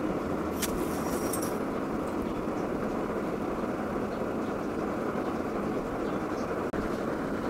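Steady rushing drone of a charcoal forge fire under an air blower as a knife blade heats in the burning coals, with a sharp click and brief crackle about a second in.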